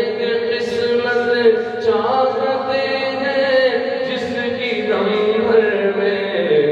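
A man's unaccompanied voice chanting an Urdu naat into a microphone, drawing out long held notes that shift pitch a couple of times.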